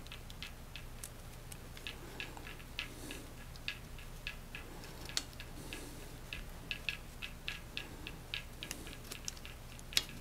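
Light, irregular clicks and ticks, a few a second, from small metal parts being handled while a bicycle cable is fitted and its fixing bolt is run in finger tight. A sharper click comes near the end.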